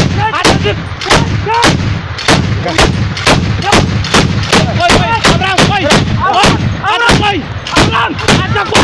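Tripod-mounted heavy machine gun firing shot after shot, about two to three a second, loud and close, with a ringing, wavering tone after many of the shots.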